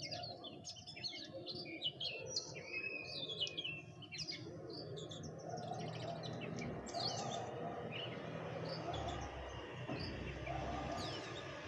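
Small birds chirping, many quick high chirps overlapping busily for the first half, then thinning to a few scattered chirps over a steady low background hum.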